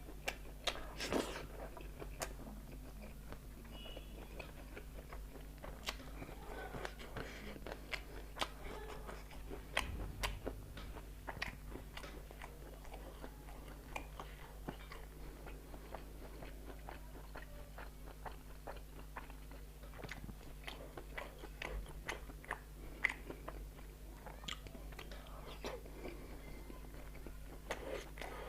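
Close-miked mouth sounds of a person eating fried chicken and rice: irregular wet chewing, smacking and crunchy bites, over a steady low hum.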